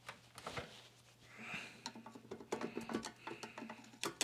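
Faint clicks and light taps of hands working on the metal body of an Airway 88 vacuum cleaner as it is taken apart. The clicks are sparse at first and come thicker in the second half, with one sharper click near the end.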